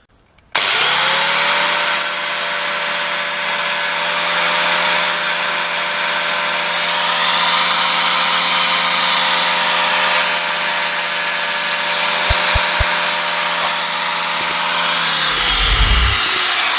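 Angle grinder spinning up and running at a steady pitch while it grinds metal in four passes, each a couple of seconds long, smoothing the battered faces of a motorcycle kick-start ratchet. It is switched off near the end and winds down with falling pitch.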